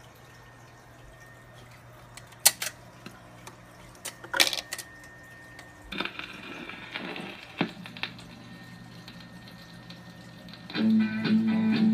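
RCA Victor 45 rpm record changer cycling: a low steady motor hum with sharp mechanical clicks and clunks as the changer drops a record and sets the tone arm down, then surface crackle from the stylus in the groove. Music from the record starts loudly near the end.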